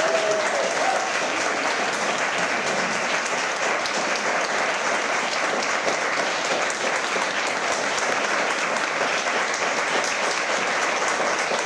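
A roomful of seated guests applauding steadily, with a brief voice heard in the first second.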